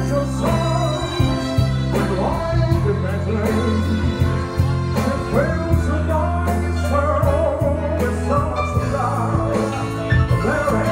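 Live band playing a song: a singer's voice with vibrato over electric guitar and keyboard, with steady low bass notes underneath.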